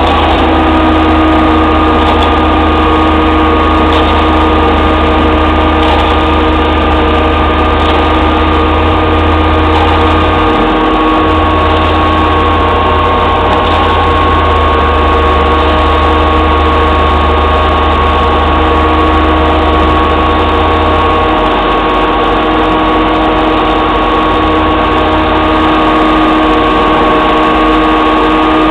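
Heavy diesel engine running steadily at constant speed, with its pitch rising slightly in the first second: a concrete mixer truck turning its drum while concrete discharges down the chute.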